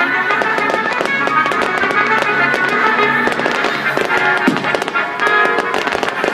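Music with held, sustained notes plays under fireworks crackling and popping in quick, irregular succession.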